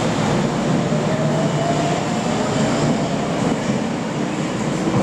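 Tokyo Metro Marunouchi Line subway train pulling out of an underground station and running away down the platform, with a continuous rumble of wheels on rails and a faint rising motor whine as it gathers speed.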